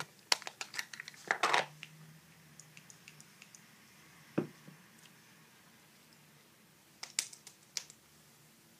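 Handling of a cosmetics container: several sharp clicks and taps in the first second and a half, and one knock a little later. Near the end come a few quick slaps of hands patting the face.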